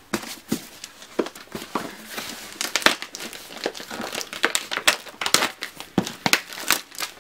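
Clear plastic document pouch being peeled off a cardboard shipping box, crinkling with many irregular sharp crackles, densest about two to three seconds in.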